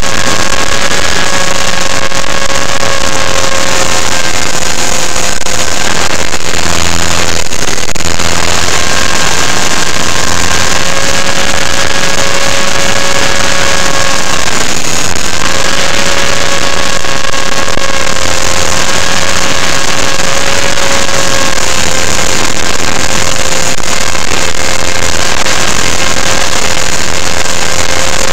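Electric T-Rex 500 RC helicopter's motor and rotor heard from a camera mounted on the helicopter: a loud, steady whine over a dense rushing hiss. The whine wavers and breaks briefly about six seconds in and again about fifteen seconds in.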